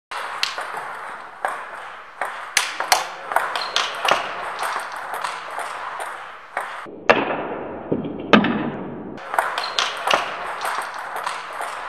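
Table tennis ball clicking against a paddle and table, sharp irregular taps a few times a second. About seven seconds in, a rushing hiss runs for some two seconds and cuts off suddenly.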